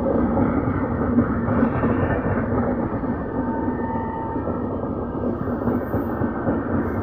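Passenger train coaches rolling past: a steady rumble and clatter of steel wheels on the rails.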